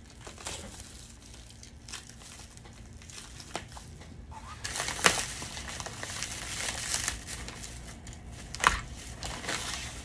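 Clear plastic shrink wrap crinkling and crackling as it is slit and pulled away by hand. It gets louder about halfway through, with a couple of sharp clicks.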